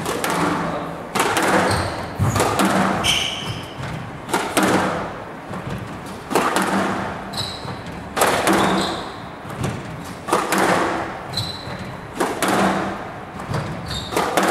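Squash rally: the ball struck by rackets and hitting the court walls, sharp echoing hits every second or two, with a few short squeaks of court shoes on the floor.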